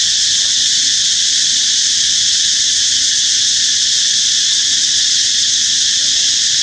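Loud, steady, high-pitched insect chorus droning without a break.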